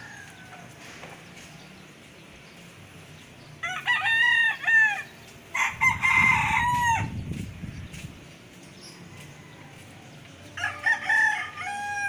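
Rooster crowing: a loud run of calls about four seconds in and another near the end.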